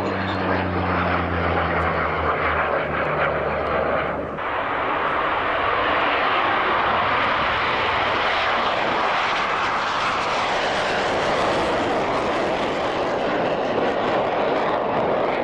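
Twin-turboprop transport flying past, its propeller drone sinking slightly in pitch. About four seconds in it cuts off abruptly, and a loud steady roar from a military jet passing takes over.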